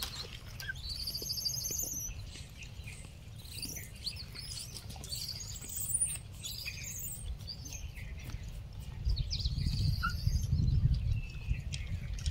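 Small birds chirping and twittering in many short, high calls, some sliding up or down in pitch, over a low rumble that swells about nine seconds in.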